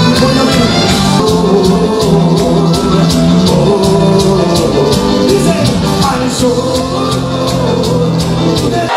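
Live cuarteto band music with a steady dance beat and a male lead singer singing into a microphone.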